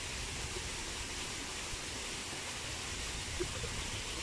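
Steady hiss of outdoor background noise with a low rumble beneath it and a few faint short blips.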